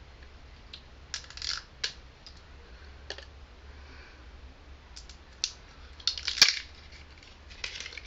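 Plastic wrapping crinkling and snapping as it is peeled off the cap of a Ramune bottle, with scattered sharp plastic clicks, the loudest about six and a half seconds in.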